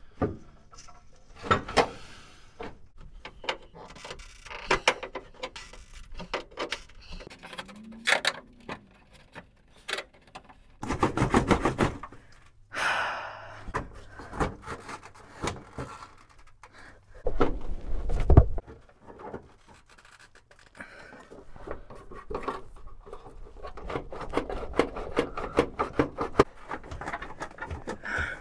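An exhaust diesel particulate filter being wrestled out from under a car: irregular metal knocks, scrapes and clunks as it catches against the subframe, with two louder stretches of clunking midway. Heavy panting breaths from the person straining to pull it free.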